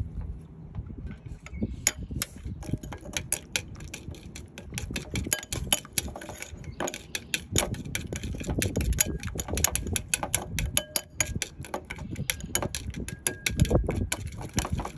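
Chopsticks clicking rapidly against a ceramic bowl as shrimp paste is whisked with lime juice, several clicks a second, starting about a second and a half in.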